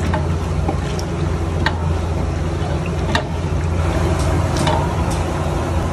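Long metal ladle stirring a thick masala in oil around a large aluminium pot, knocking and scraping against the pot several times, over a steady low hum.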